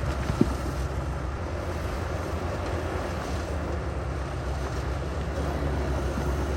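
Heavy diesel engine of earthmoving equipment running steadily, with a single short knock about half a second in.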